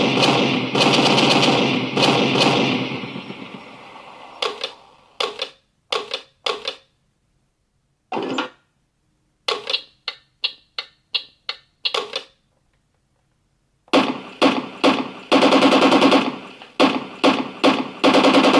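Recorded gun effects from a JS-2 tank sound pack, played by an RC tank sound unit: loud machine-gun fire at first, fading away, then separate sharp shots. About halfway through comes a run of about seven quick shots, and after a short silence a dense rapid burst begins near the end.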